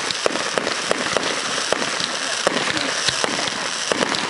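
Aerial fireworks bursting overhead: many irregular sharp pops and bangs over a steady dense crackle.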